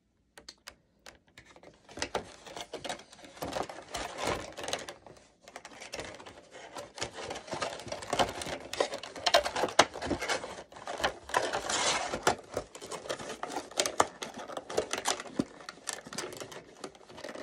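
Rigid clear plastic blister packaging being handled and packed into a cardboard box: irregular crackling and clicking that starts about two seconds in.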